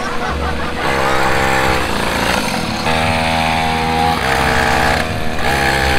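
Small engines of a kids' mini ATV and mini dirt bike running close by, revving up and holding several times, about a second in, around three seconds and again near the end.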